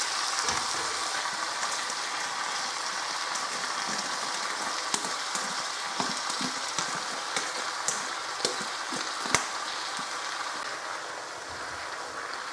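Noodle stir-fry sizzling in a wok as it is tossed and mixed, with scattered clicks and scrapes of utensils against the pan. The sizzle eases slightly near the end.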